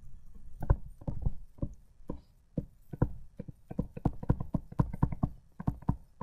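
Stylus tapping on a tablet screen during handwriting: an irregular run of small clicks and knocks, about three or four a second, with a brief pause about two seconds in.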